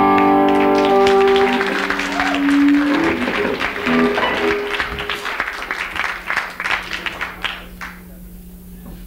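A live band's last electric guitar chord rings out and fades over the first few seconds as the audience starts clapping. The applause thins out and stops near the end, leaving a low steady hum.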